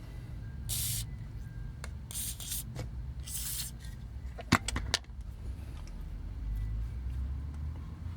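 Plastic toy parts being handled and worked on: three short scraping rustles, then a quick cluster of sharp clicks about four and a half seconds in, over a steady low hum.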